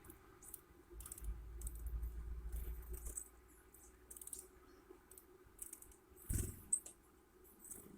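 Irregular light tapping and clicking, typical of a bird pecking at food, with a couple of louder knocks near the end and a low rumble in the first few seconds.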